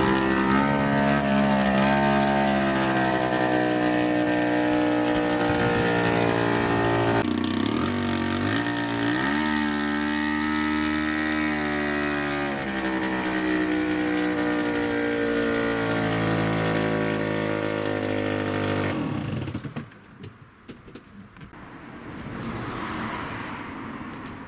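Mitsuoka MC-1 microcar's 50cc engine running under way, its pitch rising and falling with the throttle as the car drives forward and then reverses, both gears now engaging after the transmission repair. The engine has an exhaust leak that is still unfixed. The engine sound stops about 19 seconds in, leaving only faint sound.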